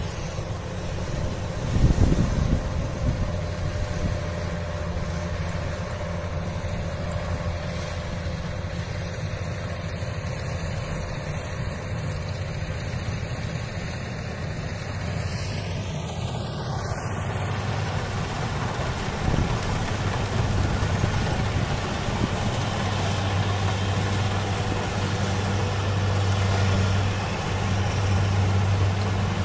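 Diesel engines of Kubota rice combine harvesters running steadily as they cut rice, with a brief louder surge about two seconds in and the low engine hum growing stronger near the end.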